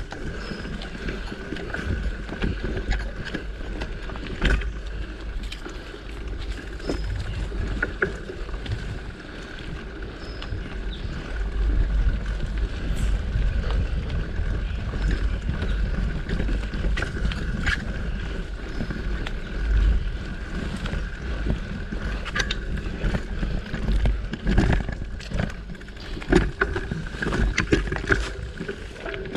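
Mountain bike rolling over a dirt singletrack trail: a steady low rumble from the tyres and wind on the mic, with scattered knocks and rattles as the bike goes over bumps.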